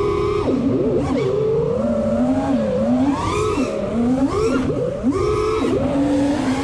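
A 4S FPV racing quadcopter's brushless motors and propellers whining. The pitch climbs and falls with the throttle, is held high briefly near the start and again about five seconds in, and drops sharply between.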